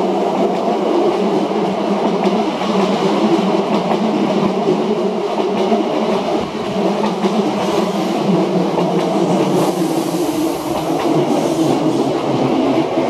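Nose Electric Railway 6000-series electric train running past at close range as it pulls into the station, with steady wheel-on-rail noise throughout.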